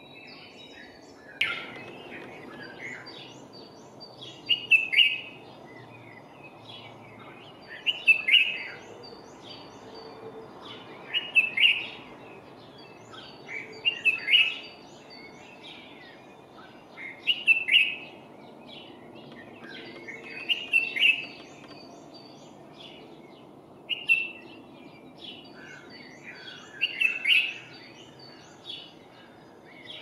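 Dawn chorus of songbirds: one nearby bird repeats a short loud phrase about every three seconds, over fainter, higher chirps from other birds and a steady low background noise.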